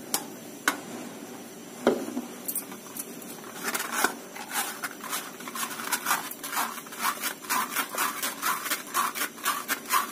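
Guava paste being worked through a kitchen sieve: a few separate knocks, then, about four seconds in, a run of quick rhythmic scraping strokes at about three or four a second as the sieve is moved back and forth.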